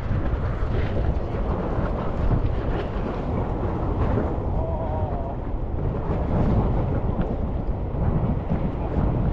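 Wind buffeting the microphone of a chest-mounted action camera, a steady rumbling rush.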